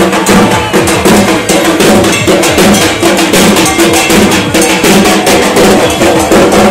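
Loud procession music: drums with rapid clanging metal percussion in a fast, dense beat, over steady low tones.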